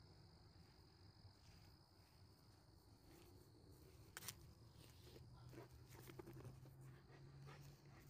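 Near silence: a faint steady low hum, with a few soft clicks, the clearest about halfway through.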